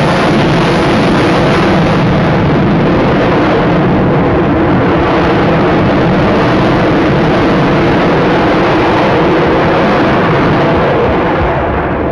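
Sukhoi PAK-FA T-50 twin-engine jet fighter passing overhead in a steady, loud wash of jet noise. The sharper hiss thins out partway through and the level dips slightly near the end as it moves away.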